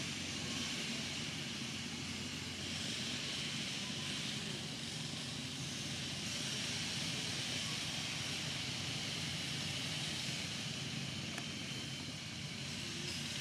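Steady outdoor background noise: a low, even rumble with a high, steady hiss over it, and no distinct events.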